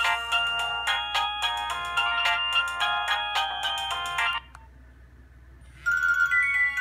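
Nokia 1600 ringtone playing a fast melody of bright electronic notes, which stops a little over four seconds in. After a short pause a different ringtone begins near the end.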